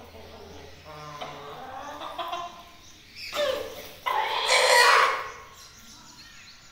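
Chickens clucking, then a loud two-part call: a short rising note about three seconds in, followed by a longer, louder one that ends near the five-second mark.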